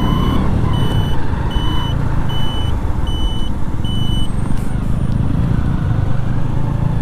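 Motorcycle running at low speed with road and wind noise, while a turn-signal buzzer beeps steadily, a little faster than once a second, for a right turn. The beeping stops about four seconds in.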